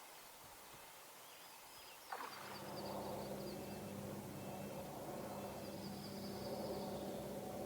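Faint high bird chirps, then about two seconds in a click and a steady low motor hum that carries on.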